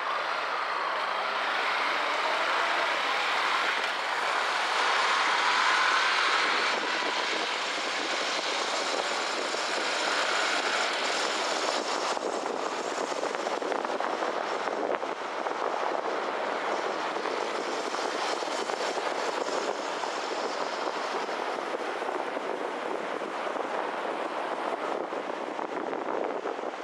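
City street traffic and a car's own road noise, a steady rushing wash, with an engine rising in pitch as it speeds up during the first six seconds or so.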